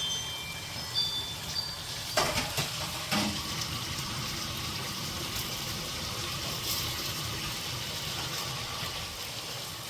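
Puli paniyaram cooking in a pan: a steady sizzle, with two sharp knocks about two and three seconds in.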